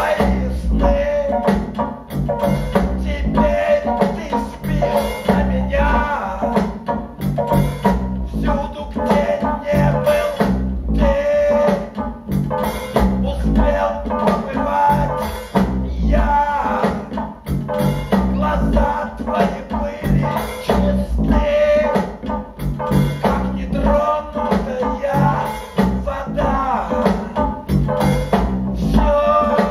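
Rock song with singing, drums and guitar, played back from a vinyl record through an Audio Note valve amplifier and AN-E/SPe HE loudspeakers and picked up in the listening room.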